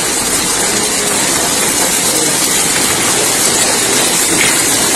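Heavy rain mixed with hail pelting a street and pavement, a loud steady hiss that cuts off suddenly at the very end.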